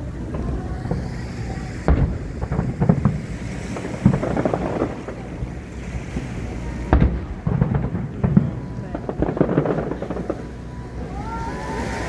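Aerial fireworks going off with deep booms, two sharp bursts about five seconds apart, over the chatter of a watching crowd; near the end several whistles rise and fall in pitch.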